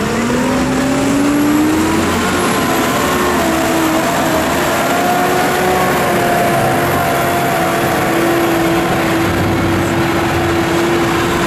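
Tractor six-cylinder diesel engines (New Holland T7.270 and Case IH Puma 240 CVX) pulling away under load from a standing start, hauling 15-tonne trailers. The engine note rises over the first two seconds, then holds steady at full pull, with a thin high whistle above it.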